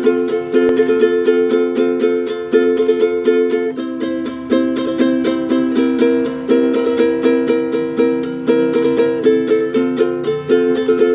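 An inexpensive Palodin ukulele strummed in a steady rhythm, several strokes a second, with the chord changing every second or two.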